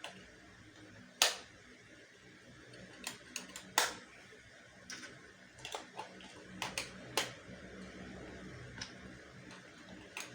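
AA batteries being pressed into the plastic battery tray of a motorized dart blaster: scattered sharp clicks and knocks, the loudest about a second in and near four seconds in.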